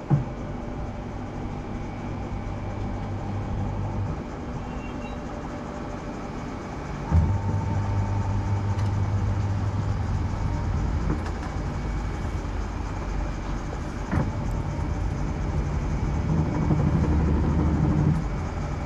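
Top-loading pulsator washing machine running, its motor humming low in stretches: on for about four seconds, easing off, then starting again sharply about seven seconds in and running on. A single click about fourteen seconds in.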